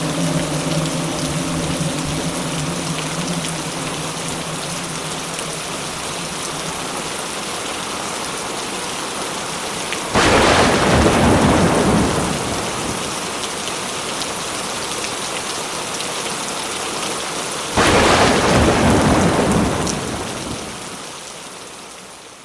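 Steady heavy rain of a thunderstorm, with two thunderclaps that break in suddenly, about ten and eighteen seconds in, each rumbling away over a couple of seconds; the whole fades out near the end.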